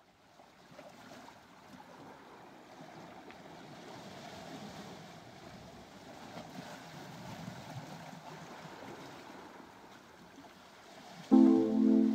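Faint, steady rush of sea and wind on an open shore. Near the end, loud music with held chords cuts in suddenly.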